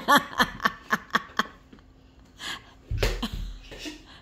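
A person coughing: a quick run of short coughs in the first second and a half, then a heavier cough about three seconds in.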